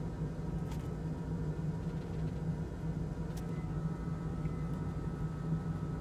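Steady low hum with an even hiss over it, broken only by a couple of faint ticks.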